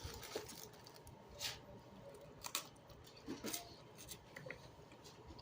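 Faint eating sounds: a few scattered soft mouth clicks and smacks while chewing.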